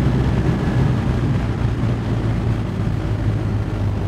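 BMW R1250R's boxer-twin engine running steadily in third gear, heard from the saddle with wind and road noise, the note easing slightly as the bike slows.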